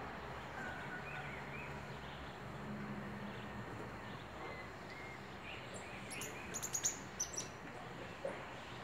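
Faint short animal chirps over steady outdoor background hiss, then a quick cluster of sharp, very high squeaks about six to seven seconds in, with one more shortly after.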